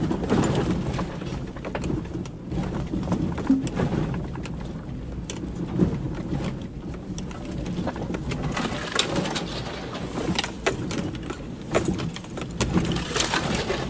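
Off-road vehicle driving slowly over a rough, overgrown forest trail: a steady low engine and drivetrain rumble with frequent sharp knocks, cracks and scrapes from branches, brush and stones hitting the body and underside.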